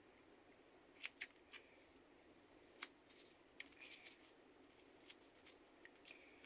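Carving knife cutting into a small piece of lime wood: faint, irregular short cutting rasps and sharp little clicks as the blade bites and chips break off.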